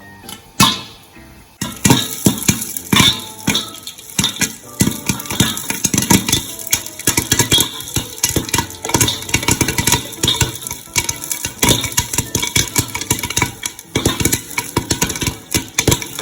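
Popcorn kernels popping and rattling in a pot: a dense, irregular run of sharp pops that starts suddenly about a second and a half in and keeps going.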